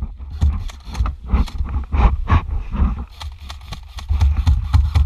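A steady low rumble with many irregular knocks, scrapes and rustles, some in quick clusters, typical of a player moving with gear rubbing and knocking close to the microphone.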